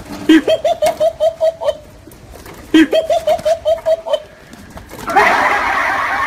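Two matching bursts of laughter, each a low start followed by a rapid run of about seven evenly pitched 'ha' pulses a second, the second burst about a second after the first ends. About five seconds in, a loud, dense noisy sound cuts in abruptly.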